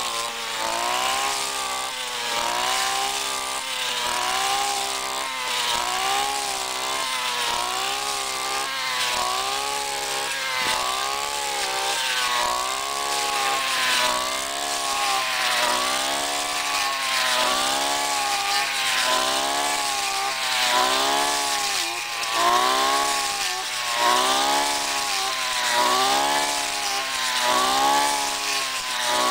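Handheld brush cutter's small engine running under load as it mows rice stalks, its pitch rising and falling about once a second as the blade sweeps through the crop.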